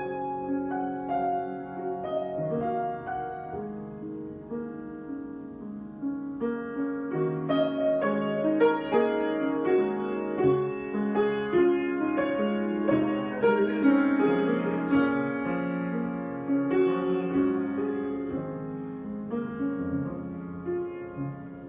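Solo piano improvisation: sustained chords with a melody above them. It grows louder and fuller from about six seconds in and eases off again over the last few seconds.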